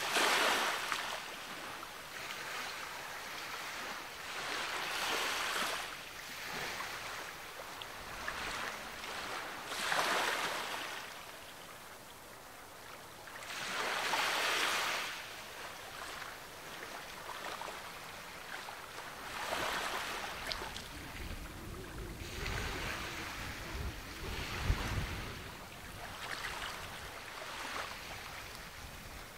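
Sea waves breaking and washing up a beach, swelling and fading in surges about every five seconds. A low rumble joins in for several seconds in the second half.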